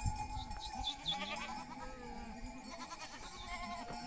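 Flock of sheep bleating, several animals calling over one another.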